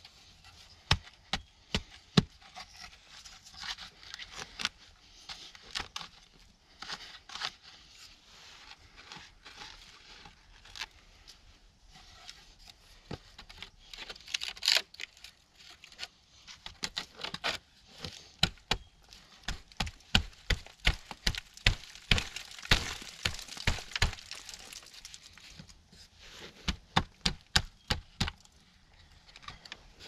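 Hand work on a bushcraft shelter: repeated sharp cracks and knocks over a rustling of dry brush, with quicker runs of knocks in the second half.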